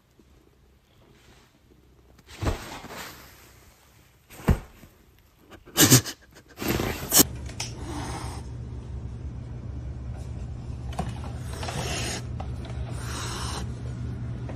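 A young orange cat hissing three times in the second half, each a short breathy hiss, over a steady low hum. Earlier come a few sudden loud sounds.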